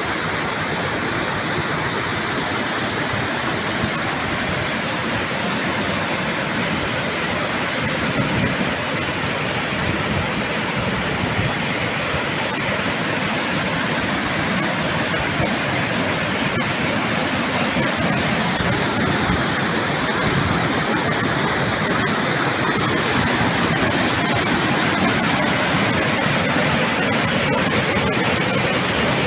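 Storm runoff pouring into a reservoir: loud, steady rushing of water.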